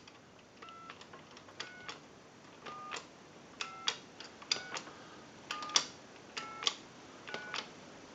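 Payphone keypad buttons pressed one after another, about one a second. Each press gives a click and a short touch-tone beep as the digits are dialed out.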